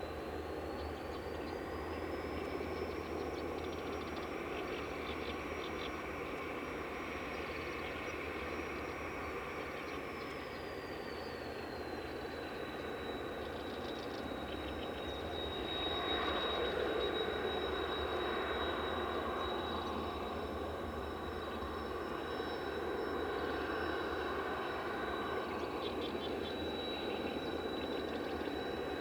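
Jet aircraft engine running steadily with a high turbine whine. The whine rises in pitch a second or two in, holds, then falls back about halfway through as the engine speed changes.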